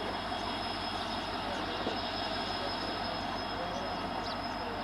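EMD WDP-4D diesel locomotive's 16-cylinder two-stroke EMD 710 engine running with a steady low hum.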